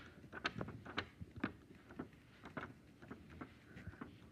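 Faint, irregular light taps and clicks, a few a second: handling noise from fingers and a paper puppet moving against the phone.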